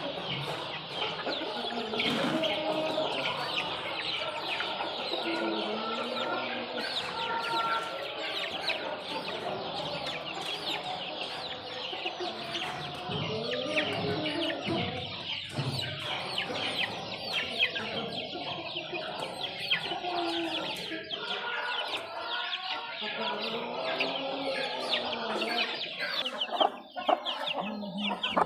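A flock of Aseel chicks peeping continuously in short, falling, high chirps while feeding, with lower clucking calls mixed in and many light pecking ticks.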